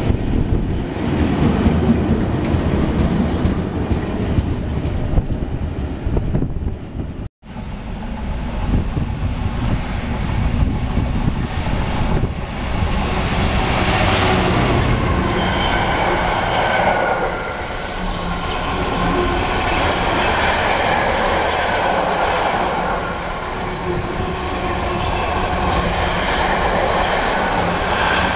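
Freight trains passing close at speed: first a Class 90 electric locomotive, then, after an abrupt cut about seven seconds in, a Class 66 diesel locomotive hauling a long train of container wagons, the wagons rattling by.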